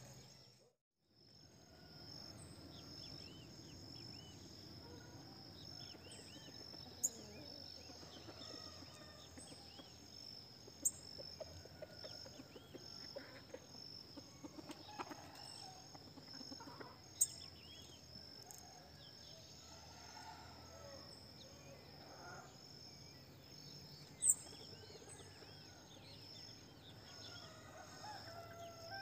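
Faint outdoor ambience: a steady high insect drone with a few short, sharp bird chirps spaced several seconds apart, the loudest about 7, 11, 17 and 24 seconds in.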